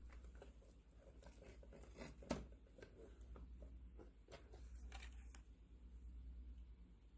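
Near silence with a faint low hum and scattered faint clicks and taps, one a little louder about two seconds in.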